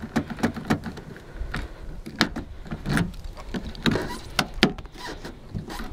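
Outer door handle of a 2004 Nissan Sentra yanked again and again, clacking and knocking at irregular intervals while the jammed door stays shut, over a low rumble.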